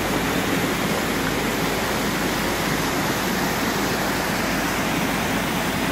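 Steady rushing of a fast mountain stream pouring over stones and rubble.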